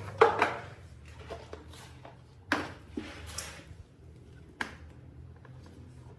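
Handling noises of a plastic bowl of bottles and a formula tin on a tile floor: a sharp knock and rattle about a quarter second in, then a few scattered taps and knocks. A low steady hum runs underneath.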